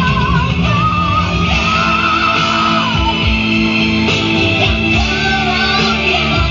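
Male rock singer holding high sung notes with vibrato over a full rock band with electric guitar.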